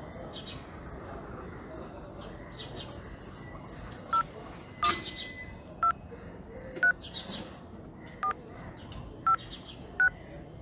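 Mobile phone keypad beeps as a number is dialled: seven short tone beeps, roughly a second apart, starting about four seconds in.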